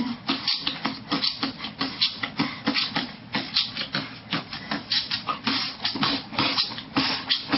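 Mouth percussion by a man beatboxing: quick, rhythmic hissing and clicking strokes made with pursed lips, about four or five a second.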